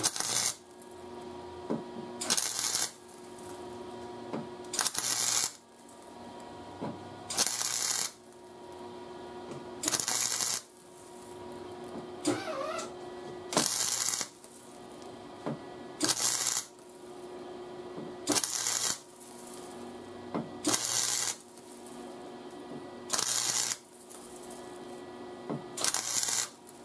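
Chicago Electric Flux 125 flux-core welder laying short tack welds on 20-gauge sheet steel, run at minimum heat and wire speed 5. About eleven brief bursts of arc, each about half a second long and roughly two and a half seconds apart. A steady hum carries on between the welds.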